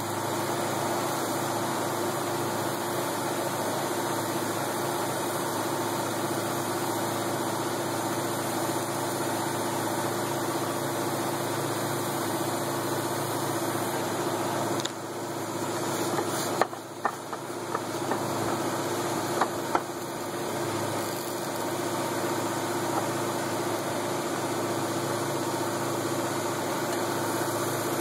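A motor runs steadily with a constant hum, with a few sharp clicks about midway.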